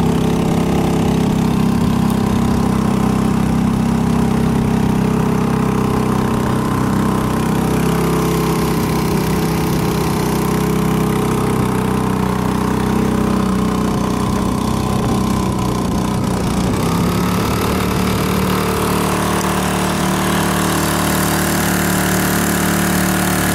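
Honda 2 hp single-cylinder four-stroke outboard motor running steadily at cruising speed, pushing a canoe along; its note shifts slightly about two-thirds of the way in.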